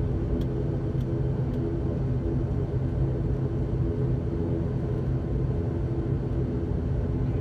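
ATR 72-600's turboprop engine and propeller running steadily at low taxi power, a constant low drone heard from inside the cabin.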